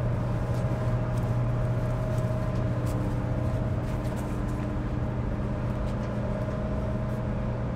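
Queen of Capilano ferry's engines and machinery running: a steady low drone with a few faint higher hum tones held underneath.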